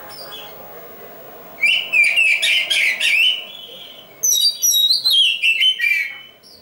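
Caged oriental magpie-robin of the black-breasted local form (kacer dada hitam) singing: two loud phrases of rapid, varied whistled notes, the first starting about a second and a half in and the second about four seconds in.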